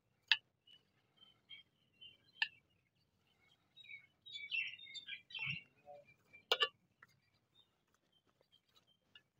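Birds chirping faintly in short, scattered calls, busiest a little past the middle. Three sharp clicks stand out, the loudest at the very start.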